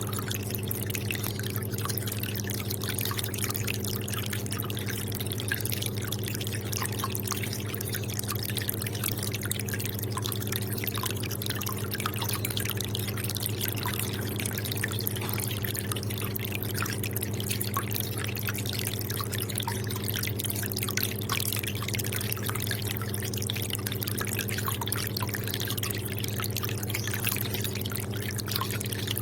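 Aquarium water bubbling and trickling in a dense patter of small drips, over a steady low hum.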